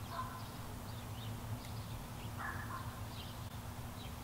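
Small birds chirping in short, scattered calls over a low, steady background hum.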